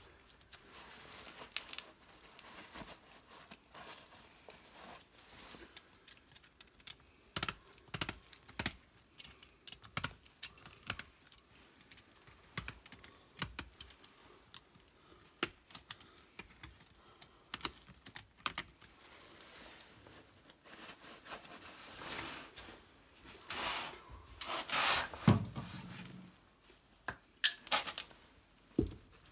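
Irregular clicks, clinks and knocks of a wrench and hands working a fitting on a water pipe, with a louder stretch of rustling and scraping a little past the middle.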